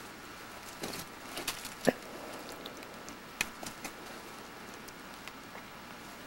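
Footsteps crunching and rustling in dry fallen leaves, a few irregular crackles with the loudest about two seconds in.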